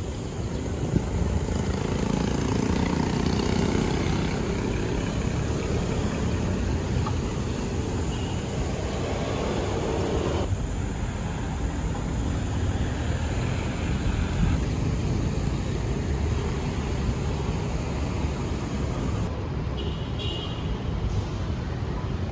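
City street traffic noise: a steady rumble of cars and road noise, which changes abruptly about ten seconds in.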